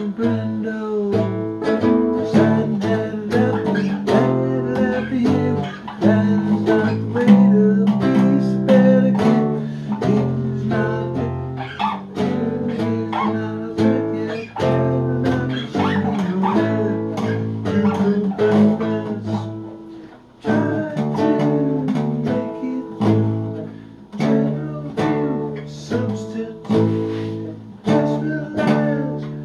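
Nylon-string classical guitar played solo, a mix of plucked notes and strummed chords left to ring, with a brief pause about two-thirds of the way through.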